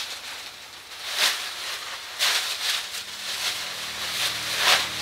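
Dry stalks and leaves rustling and crackling in bursts as they are gathered and tossed by the armful, several times. Soft background music comes in during the second half.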